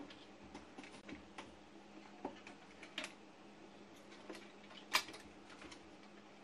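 Scattered light clicks and taps of wires and a small circuit board being handled inside a record player's case, the loudest knock about five seconds in, over a faint steady hum.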